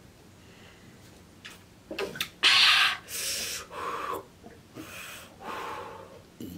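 A woman blowing out hard breaths through pursed lips and gasping, about five times from a couple of seconds in, the first the loudest. The breaths follow gulps of ice-cold water; she describes her throat as frozen from the cold.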